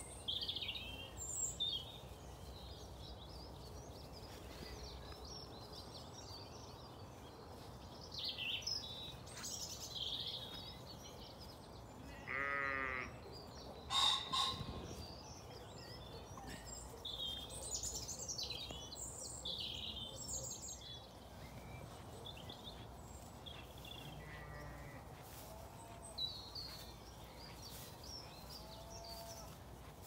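Small birds singing and calling in an orchard, short chirps and warbles scattered throughout. A Zwartbles sheep bleats with a tremble about twelve seconds in, followed by a sharp, loud note just after. A fainter bleat comes near the end.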